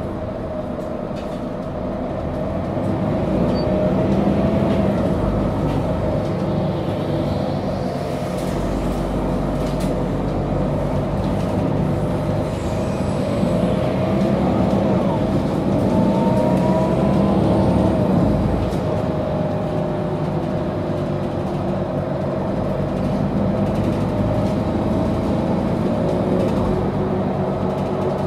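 Mercedes-Benz O530G Citaro articulated city bus heard from inside on the move: the engine runs steadily with a rumble of rolling noise. The engine note swells and falls as the bus speeds up and slows, and a whine rises in pitch a little past the middle.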